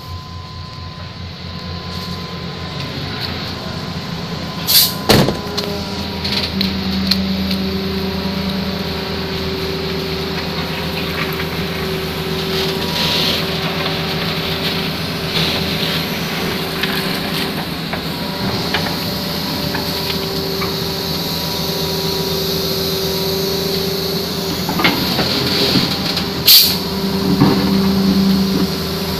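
Hitachi Zaxis crawler excavator's diesel engine running steadily as it digs mud, with a higher steady tone over the engine that breaks off and returns, and a few sharp clanks, the loudest near the end.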